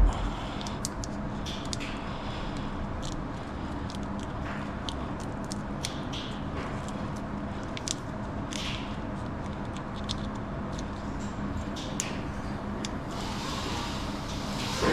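Electrical tape being pulled off the roll and wrapped around a wiring harness: scattered short crackles, ticks and rustles of tape and wires being handled, with a thump at the start and another near the end, over a steady low hum.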